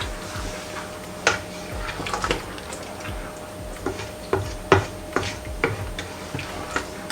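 A spoon stirring a pot of tomato stew, knocking and scraping against the pot in about a dozen irregular short clicks.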